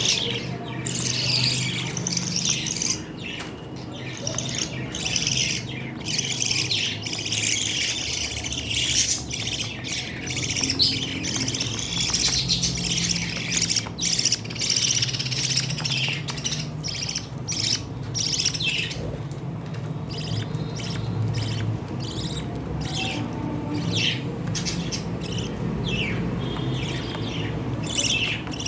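Pet lovebirds chattering nonstop in rapid, shrill chirps and squawks.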